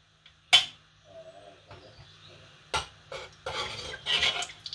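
Metal spoon stirring in an aluminium cooking pot: two sharp clinks against the pot, then a longer scraping stir near the end.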